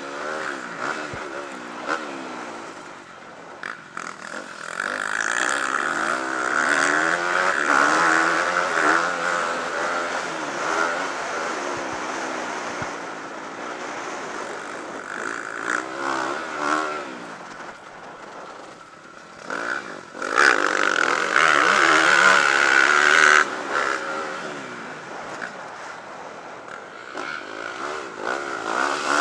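Motocross dirt bike engine, heard from on the bike, revving up and down as the rider throttles on and off and shifts through the gears. It eases off just before the twenty-second mark, then runs hardest for about three seconds.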